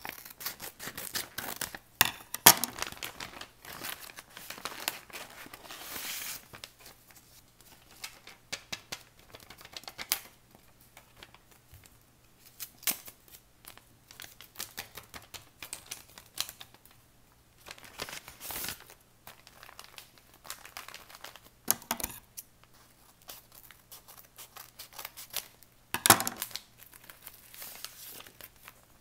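Scissors snipping through a paper bag, then the paper bag and the paper squishy inside being opened, unfolded and crinkled in irregular rustles, with a louder crackle a couple of seconds in and another near the end.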